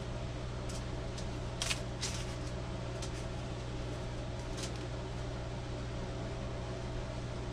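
Hands rolling an egg roll wrapper on aluminium foil: a handful of brief, faint crinkles and rustles in the first five seconds, the clearest about two seconds in, over a steady low machine hum in the kitchen.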